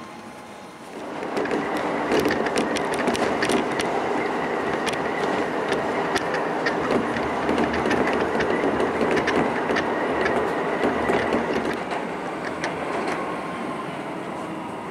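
Keisei electric commuter train heard from inside the car while running: wheel-on-rail rumble that swells about a second in, with many sharp clicks and a steady high whine. Near the end a tone slides downward as the train slows into a station.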